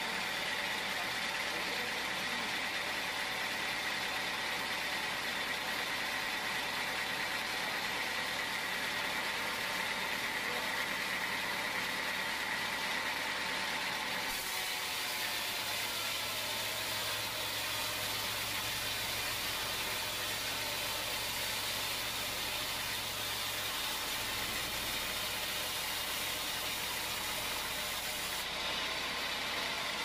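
Band sawmill running, its blade sawing lengthwise through a teak log: a steady machine whine with sawing noise. About halfway through the sound changes and a low hum comes in.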